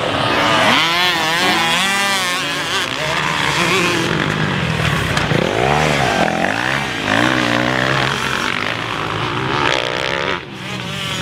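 Several motocross dirt bikes riding the track together, their engines revving up and down through the corners so the pitch rises and falls over and over, one engine note overlapping another.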